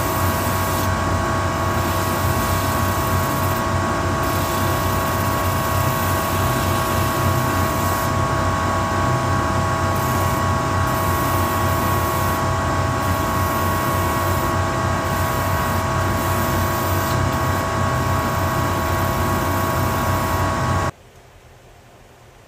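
Shoe-repair finishing machine running steadily, a motor whine with several fixed tones over a grinding hiss, as a white Vibram Christy sole's edge is worked against its sanding wheel. It stops abruptly near the end, leaving faint room noise.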